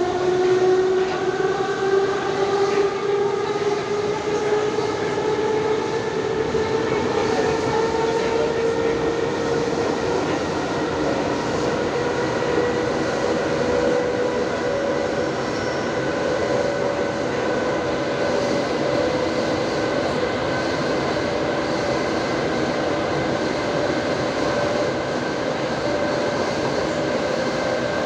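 Soviet-built 81-71 metro train heard from inside the car: the whine of its traction motors and gears rises in pitch over the first ten seconds or so as the train gathers speed, then holds steady at running speed, over the continuous rumble of wheels on rail.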